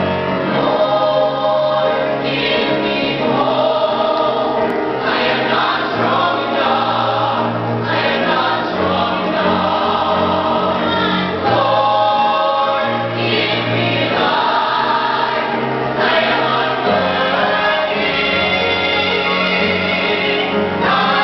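Choir singing, with full held chords that change every couple of seconds over a steady low bass.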